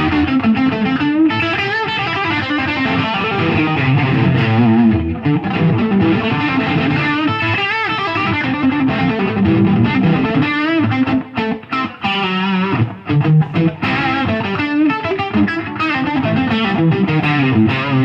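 Gretsch Electromatic Pro Jet electric guitar played through a distortion effect into a Marshall DSL15C combo's clean channel, picking lead lines with string bends and vibrato. The playing breaks off briefly a few times past the middle.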